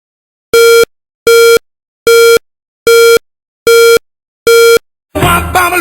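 Six loud, evenly spaced electronic beeps, each about a third of a second long and a little under a second apart, with a buzzy busy-signal-like tone. Music starts just after the last beep, near the end.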